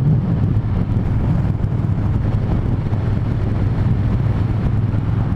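Triumph Thunderbird Storm's parallel-twin engine running at a steady cruise, with a steady low drone under wind noise on the microphone.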